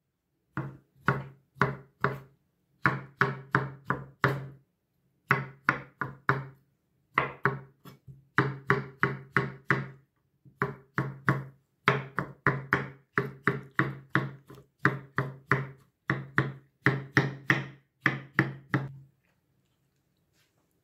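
Large kitchen knife chopping cauliflower on a wooden cutting board: quick, sharp knocks several a second in runs of a few seconds, with short pauses between runs. The chopping stops shortly before the end.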